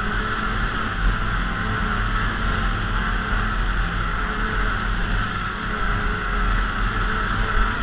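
Polaris snowmobile engine and track running steadily at cruising speed, heard from the rider's seat.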